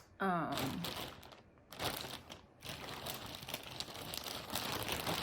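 Plastic packaging crinkling and rustling as it is handled, continuous from about two seconds in.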